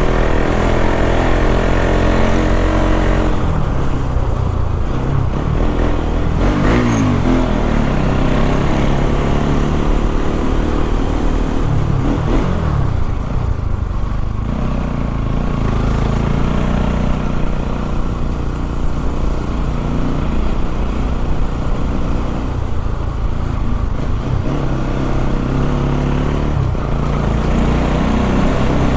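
Bajaj Pulsar NS200's single-cylinder engine running through an aftermarket Akrapovic exhaust with the dB killer fitted, on the move, its pitch rising and falling as the throttle is opened and closed, with a couple of clear revs in the first half.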